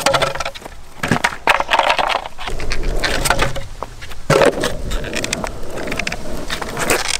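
Longboard tricks on asphalt: the wooden deck and wheels knock on the ground several times, near the start, about a second in, a little past four seconds and near the end. Between the knocks the wheels roll over the rough surface.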